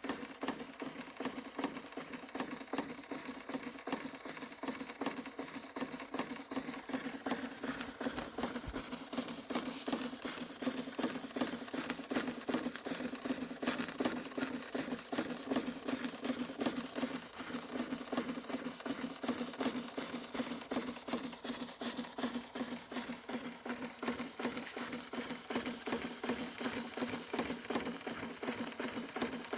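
Märklin 4112/11 toy steam engine running steadily, with a rapid, even clatter of beats over a steady hum.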